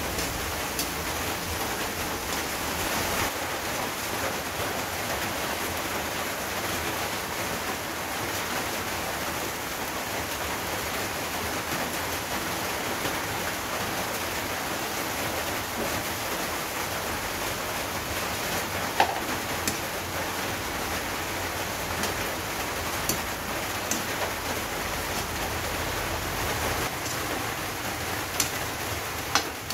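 Long beans and eggplant sizzling in a steel wok over a gas flame, a steady hiss. A few sharp metal clinks of the spatula against the wok come in the second half.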